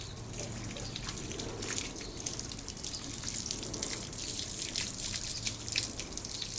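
Water splashing and dripping during a dog's bath, many small drips and splashes off a Saint Bernard's wet coat.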